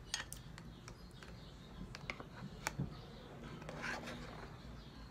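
Faint handling of food: scattered light clicks and taps of fingers and a spoon on hard taco shells and the plate, with a brief scratchy rustle about four seconds in.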